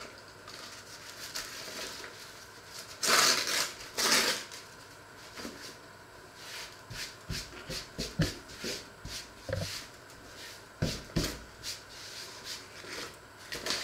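A bag being handled and crinkled by hand, with two loud rustles about three and four seconds in, then a string of shorter crackles and a few light knocks on the table.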